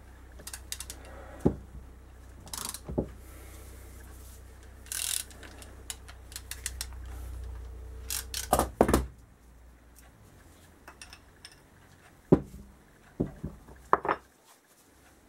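Scattered clicks and metallic knocks of hand tools on a motorcycle brake caliper: a socket ratchet worked on the caliper's fittings, and tools set down on the workbench, with the loudest clatter a little past the middle.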